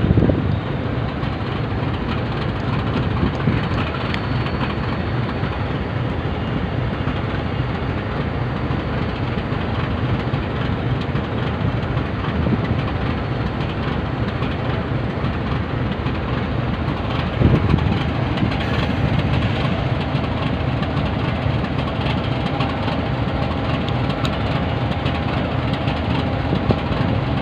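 Diesel-electric locomotive engine running with a steady low rumble as the locomotive moves slowly along the platform, with a brief louder thud about two-thirds of the way through.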